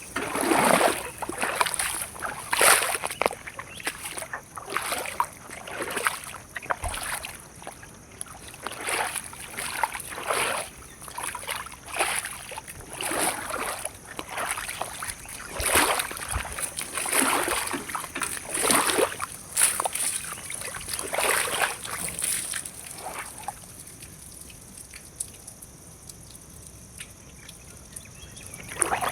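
Repeated wet sloshing and splashing strokes, irregular, about one or two a second, stopping for several seconds near the end.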